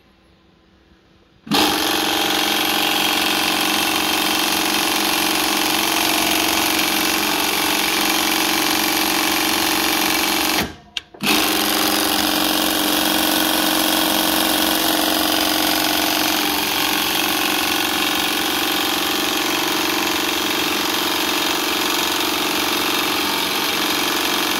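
Juki LS-341N cylinder-bed walking-foot industrial sewing machine stitching steadily through layered fabric, starting up about a second and a half in. It stops briefly about eleven seconds in, then runs on steadily.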